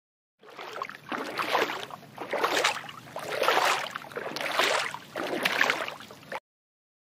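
Dolphins splashing in a pool: water sloshing and splashing in about six swells roughly a second apart, cut off suddenly near the end.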